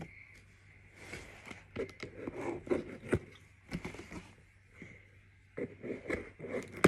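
Packing tape on a cardboard box being cut and scraped at, with irregular rustling and scraping strokes and a sharp click near the end.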